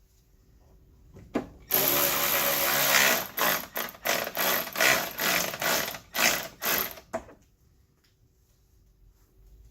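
Power drill running screws in: one steady run of over a second, then a string of short trigger bursts as the screw seats, stopping about seven seconds in.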